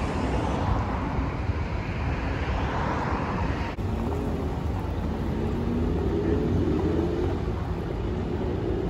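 Steady city street traffic noise with a strong low rumble. The sound briefly drops out about four seconds in.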